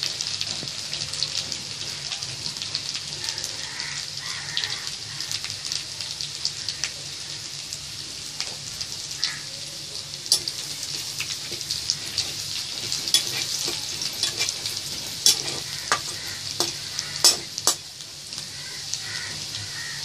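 Chopped ginger and garlic sizzling in hot oil in a kadai as they are sautéed and stirred with a spatula: a steady crackling hiss, with several sharp clicks in the second half.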